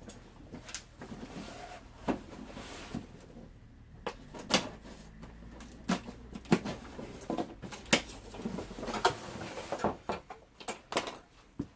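Vacuum cleaner attachment tools being handled: a string of irregular clicks and knocks as pieces are picked up and put down, with some rustling.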